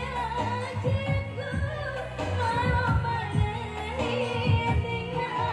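A woman singing into a handheld microphone, amplified through a PA speaker at a sound check, over accompaniment with a steady low beat. Her held notes waver in pitch.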